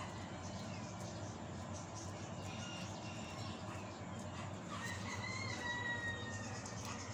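A rooster crowing once, about five seconds in, one drawn-out call lasting about a second and a half, over a steady low background hum.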